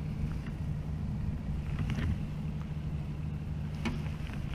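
Small boat's outboard motor running steadily at low speed with a low hum, and some wind on the microphone. A couple of faint ticks come through near the middle and end.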